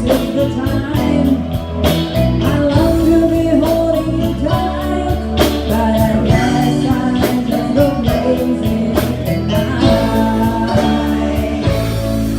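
Band music: a sung vocal over guitar and bass with a steady drum beat.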